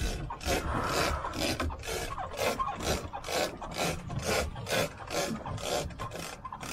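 Heavy fishing leader line rasping as it is hauled in hand over hand, in regular strokes about twice a second.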